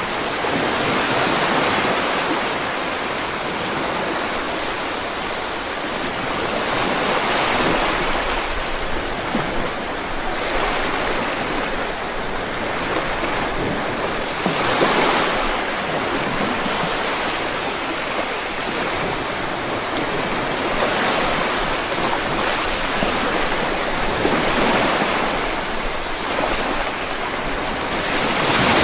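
Steady heavy rainfall: a dense, even hiss that swells and eases gently every few seconds.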